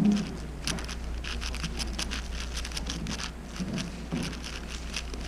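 Moyu Weishi 6x6 speed cube being turned fast by hand: a quick, irregular clatter of plastic layer turns.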